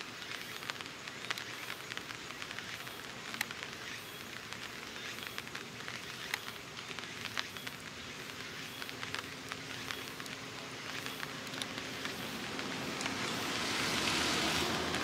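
Steady outdoor noise with frequent small crackles. A high hiss swells over the last few seconds.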